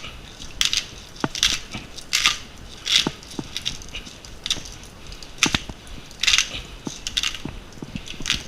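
A hand salt grinder being twisted over food, giving a run of short gritty crunching bursts about once a second as pink salt crystals are ground.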